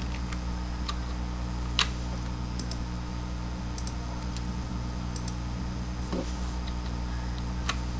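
Scattered computer keyboard and mouse clicks as a value is entered into a software field, a sharp one about two seconds in and another near the end, over a steady low electrical hum.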